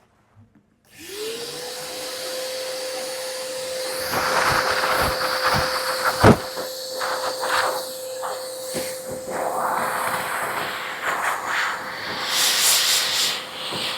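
A 30-litre wet-and-dry vacuum cleaner switched on about a second in, its motor spinning up to a steady whine over a rush of air. From about four seconds in the rush of air grows louder and rises and falls unevenly.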